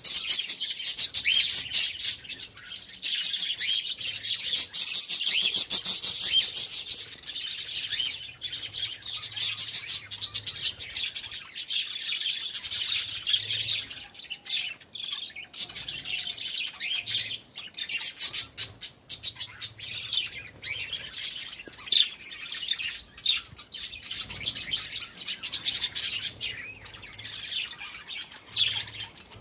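A flock of budgerigars chattering: dense, rapid high chirping, busiest over the first several seconds and thinner and more broken after that.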